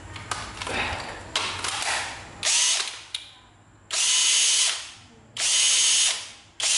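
National cordless drill motor run unloaded in four short trigger pulls, each a brief steady whine that starts and stops abruptly, after a couple of seconds of light handling clicks. This is a test that the drill runs now that the battery contact has been bent out to make contact.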